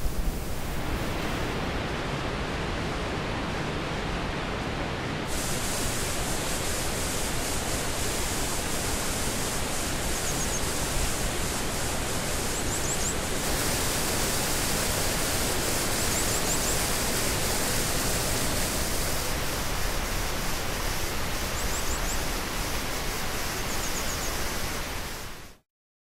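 Waterfall of Arangachi Falls: water falling and rushing with a steady noise. A few faint, short, high calls of a grey wagtail come through over it at times.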